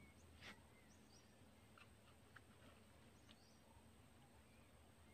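Near silence: faint outdoor ambience with a few soft ticks, the loudest about half a second in, and a few faint short bird chirps.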